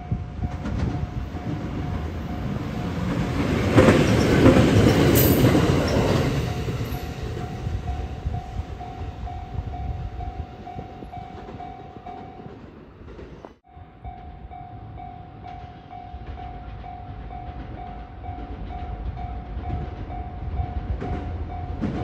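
Japanese level-crossing warning bell ringing in a steady repeating pattern, with a train rumbling over the crossing, loudest about four to five seconds in. After a short break near the middle, the crossing bell rings on as another train approaches.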